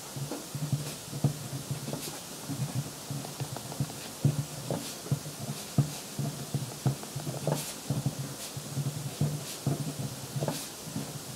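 Marker writing on paper: a run of short, irregular squeaks and scratches, one for each stroke, with a few sharp taps.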